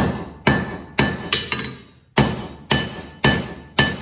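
Blacksmith's hammer striking hot steel, an old file being forged, on an anvil: about eight blows at roughly two a second, with a short pause a little before halfway, each blow ringing.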